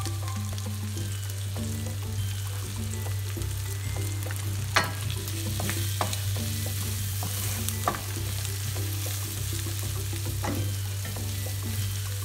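Shrimp, onion and garlic sizzling in a stainless steel skillet while a wooden spatula stirs them, with a few sharp knocks of the spatula against the pan, the loudest about five seconds in. A steady low hum runs underneath.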